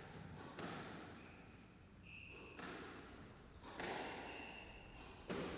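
Squash ball rally: about four sharp hits of racket on ball and ball on the walls, one to two seconds apart, each ringing briefly in the court, with short squeaks of court shoes on the wooden floor between them.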